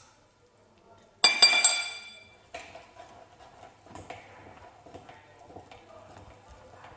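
Porcelain bowl clinked a few times by a plastic scraper about a second in, ringing and fading over about a second. Fainter irregular clicks and knocks follow.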